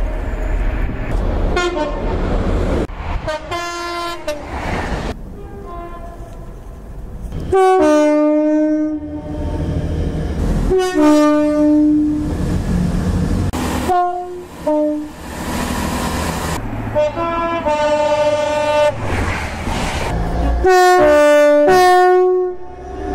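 Train two-tone horns sounded again and again, each a higher note dropping to a lower one, over the rumble of trains running past.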